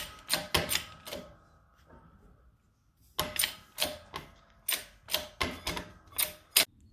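Workshop press being worked to push a worn spherical bearing out of a coilover's eye mount: a run of sharp metallic clicks, then a pause of about two seconds, then another quick, uneven run of about ten clicks.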